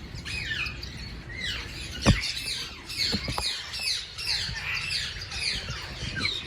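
A flock of small aviary birds chirping and squawking, with many short falling calls overlapping. A sharp knock sounds about two seconds in.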